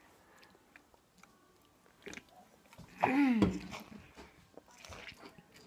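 Rustles and small clicks from the phone being handled. About three seconds in comes a short vocal sound from a girl, falling in pitch.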